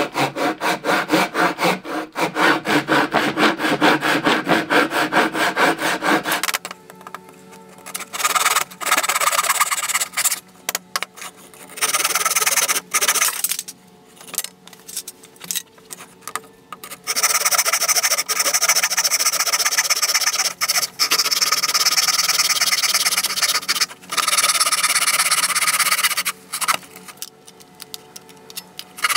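Hand saw cutting through plywood. Quick, even strokes for about the first six seconds, then sawing in stop-start runs with a higher, rasping tone and short pauses between them.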